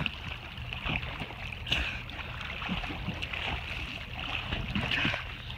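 Pond water sloshing and lapping close to the microphone held at the water's surface, with splashing as someone wades through shallow water.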